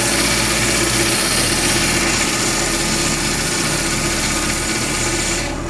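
A tabletop coral band saw running and cutting through the stony skeleton of a Duncan coral, squaring off a fragment's base: a steady whir with a hum. It stops near the end.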